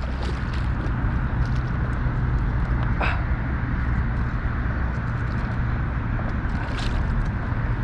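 Steady low rumble and hiss of wind and moving water on an open river, with a brief faint click about three seconds in and another near seven seconds.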